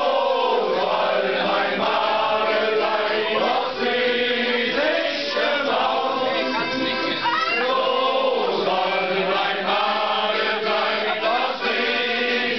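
A roomful of mostly male voices singing a song together, loud and unpolished, as a group sing-along.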